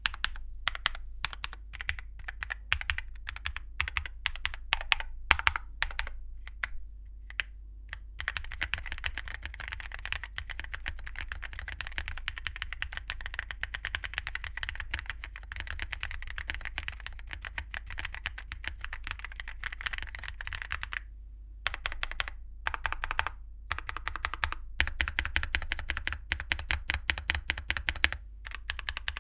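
Typing on a Keychron Q3 Ultra mechanical keyboard with stock Keychron Silk POM red linear switches and KSA-profile double-shot PBT keycaps. Slower, separate keystrokes come first, then fast continuous typing. There are short pauses about two-thirds of the way through, before another run of fast typing.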